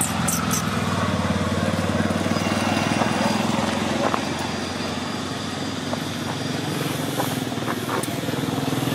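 A small engine running steadily at idle: a low, even hum with a fast pulse.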